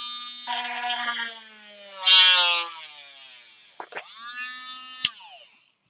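Small cordless rotary tool (Harbor Freight Drill Master) drilling with a small bit. Its high motor whine drops in pitch as the bit bites in, with a louder, grittier burst about two seconds in. The whine then stops, spins up again for a second short run and winds down.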